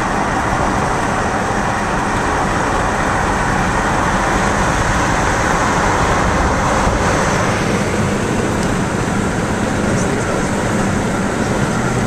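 Steady road noise of a car driving along a highway: an even rush of tyre and wind noise over a low rumble, unchanging throughout.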